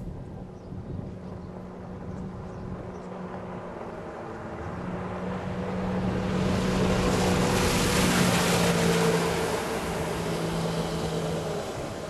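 Jet ski engine and its water spray passing by, growing louder, loudest a little past the middle, then fading with the engine pitch dropping as it moves away.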